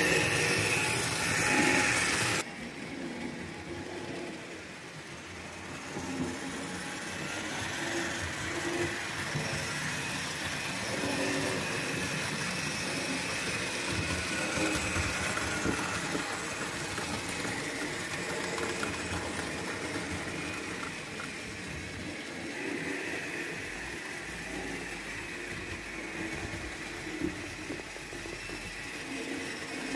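HO-scale model trains running on the layout: a steady whirr of small electric motors with wheels rattling along the track. The sound is louder for about the first two seconds, then drops suddenly.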